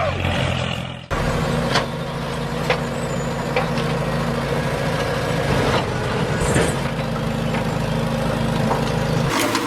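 Truck engine running steadily, starting about a second in after a brief drop, with a few clicks and knocks over it.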